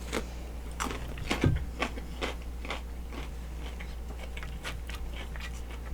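Close-miked chewing and biting in a mukbang, with a run of sharp crunches from a bitten mouthful, most of them in the first three seconds.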